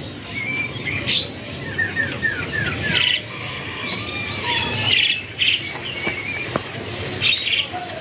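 Many caged birds chirping and calling together, with a quick run of about five falling chirps between one and three seconds in.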